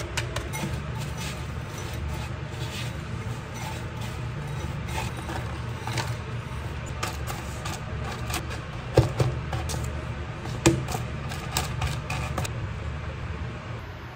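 Silicone spatula pressing and scraping crushed Oreo crumbs in a plastic tub, making irregular small clicks and taps against the plastic. Two louder knocks come a little past halfway. A steady low hum runs underneath.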